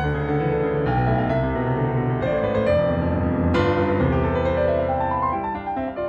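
Background piano music, notes struck one after another, with a run of rising notes near the end.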